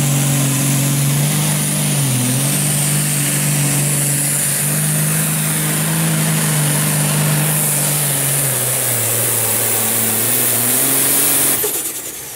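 John Deere limited pro stock pulling tractor's diesel engine running flat out under load as it drags the sled, a steady drone with a bright hiss above it. The pitch dips briefly about two seconds in and sags later, as the load bogs it down, then picks up again. Near the end the engine is cut back and the sound drops off sharply.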